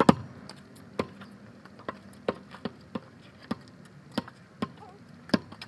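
Footsteps on pavement close by: a string of sharp, separate knocks at an uneven pace, about one every half second to one second.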